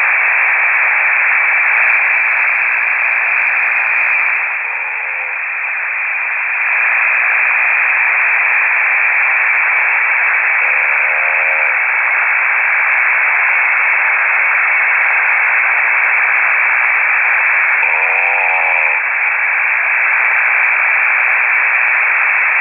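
Loud steady static hiss from a KiwiSDR shortwave receiver, heard through its narrow voice passband, between transmissions on the band. A few brief, faint warbling tones come through about five, eleven and eighteen seconds in.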